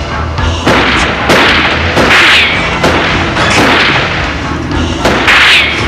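Handgun shots as film sound effects: about six or seven sharp bangs in fairly quick succession, some with a hissing tail.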